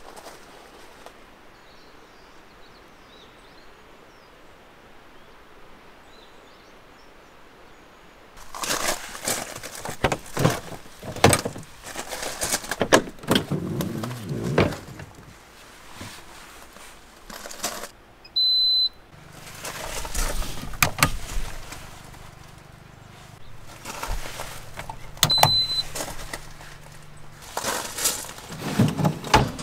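Quiet outdoor air with faint birds, then, after about eight seconds, gear being handled in a pickup's bed storage: knocks, clicks and clatter of panels, lids and drawers being opened and moved. Twice, about two-thirds in and near the end, a short high electronic beep sounds, and a low hum runs for several seconds between them.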